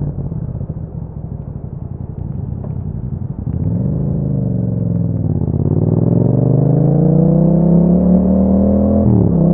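Yamaha MT-07's parallel-twin engine through an Akrapovic exhaust, ridden: a low uneven burble at first, revs rising and falling around four seconds in, then climbing steadily under acceleration, with a sharp brief dip near the end.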